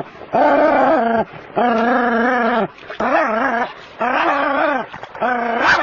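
A small terrier baying at a snake: about five long, drawn-out barking howls in a row, each close to a second long and wavering in pitch.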